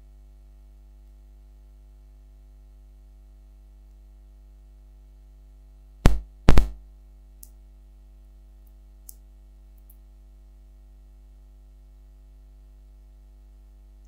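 Steady electrical mains hum, with two loud sharp knocks about half a second apart some six seconds in, followed by a few faint clicks.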